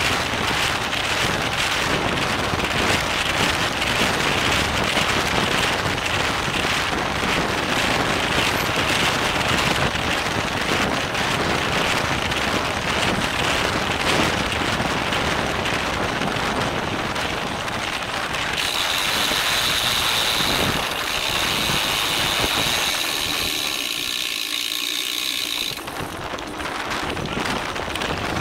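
Wind rushing over a bike-mounted camera's microphone while racing on a road bicycle. From about two-thirds of the way in, a bicycle rear hub's freewheel buzzes with rapid ratchet clicking as the rider coasts, and the wind rush eases for a few seconds before returning near the end.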